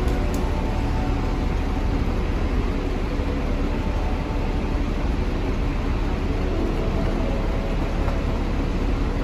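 Steady low rumble of a Hong Kong double-decker tram and the street traffic around it, heard from the tram's upper deck.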